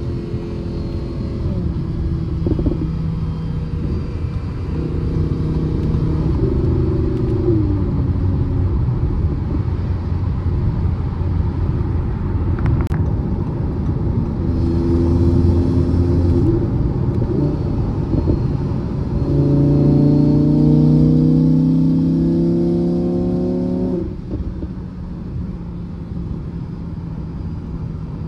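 Audi R8 V10 Spyder's 5.2-litre V10, heard from inside the cabin cruising at autobahn speed under road noise. About twenty seconds in, it pulls hard, its note climbing and growing louder for a few seconds. Then it falls away abruptly to a quieter cruise.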